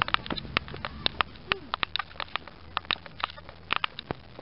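Footsteps on a paved path: irregular sharp clicks and taps, several a second, with a brief faint voice about a second and a half in.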